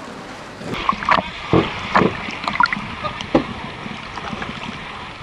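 Water rushing and splashing as a sailing yacht drives through choppy sea, with a run of sharp splashes and slaps in the first few seconds.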